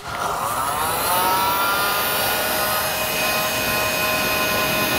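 Handheld electric heat gun switched on with a click, its fan motor spinning up over about a second into a steady whine over the rush of blown air.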